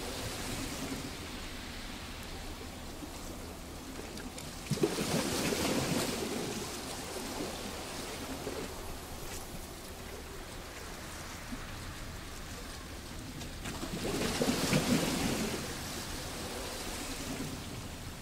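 Sea waves breaking on a rocky beach: two louder surges about nine seconds apart, with a steady wash of surf between them.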